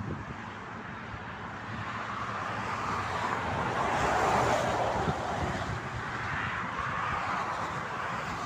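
Motorway traffic passing at speed: the tyre and wind noise of vehicles going by swells to its loudest about halfway through, with a smaller swell near the end.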